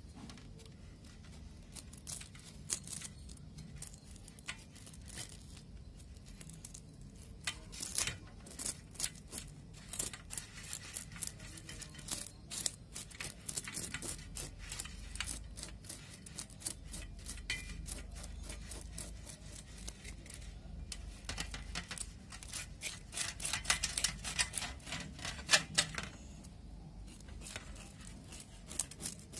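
A knife scraping scales off a whole tilapia on a steel plate: rapid rasping strokes with short gaps, in runs that grow busiest about eight seconds in and again a few seconds before the end.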